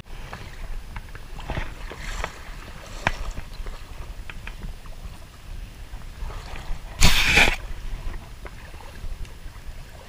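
Creek water splashing and sloshing, with scattered small knocks and one loud splash about seven seconds in.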